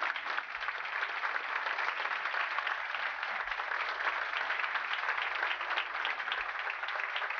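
A roomful of people applauding, many hands clapping at once at an even level.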